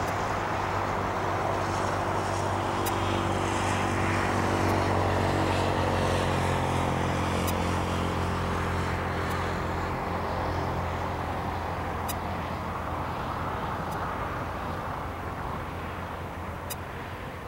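Airbus A320 jet engines running on landing, a steady jet drone with a hum of engine tones under it. The drone is loudest a few seconds in, the tones drop slightly in pitch, and then it fades as the airliner rolls away down the runway.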